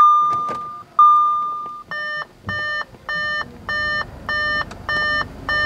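2013 Audi A4 cabin warning chimes with the ignition on and the door open: three single chiming tones about a second apart, then a repeating beep just under twice a second.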